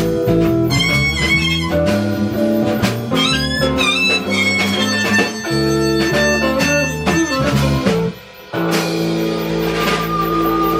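Blues band playing live, with wavering, bent high notes over held chords. About eight seconds in the band stops for a moment, then comes back in on a long held closing chord that rings on.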